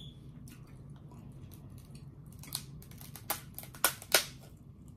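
King crab leg shell being cracked apart by hand: a run of sharp cracks and snaps, the loudest two coming close together about four seconds in.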